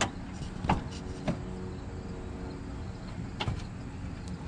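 A few short sharp clicks over a faint steady hum as the 1957 Chevy truck's starter is tried and the engine does not crank. The battery's ground connection has failed.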